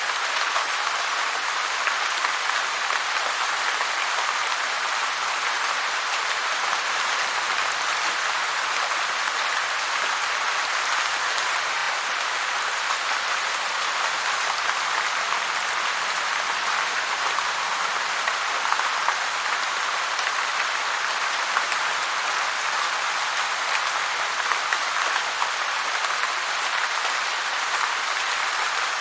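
Heavy rain falling steadily, a dense, even patter with no let-up.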